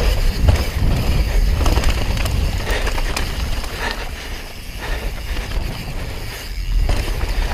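Downhill mountain bike ridden fast over a dirt trail, heard from a camera on the bike: a steady low rumble of wind and tyres with frequent rattles and knocks from the bike over bumps.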